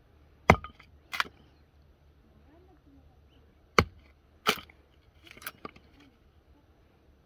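A small hatchet chopping firewood into kindling on a wooden block: four sharp chops in two pairs, then a few lighter knocks.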